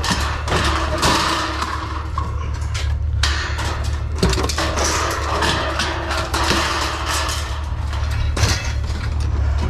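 Appliance sheet-metal scrap clanking and scraping as it is pulled from a pickup bed and thrown onto a pile, with several sharp metal knocks, over the steady low rumble of an engine running.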